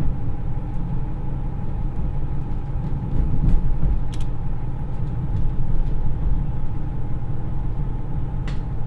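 Inside a JR East KiHa 110 diesel railcar under way: a steady low running rumble from its Niigata DMF13HZA diesel engine and wheels on the track, with a few faint clicks.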